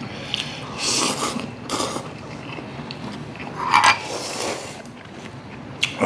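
Slurping and chewing of cold naengmyeon noodles in broth, a few short, wet slurps with the strongest just before the four-second mark.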